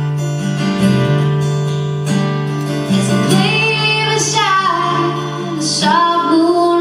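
A woman's solo live performance: acoustic guitar strummed steadily, with her voice coming in about three seconds in and singing a long, pitch-bending line over the guitar.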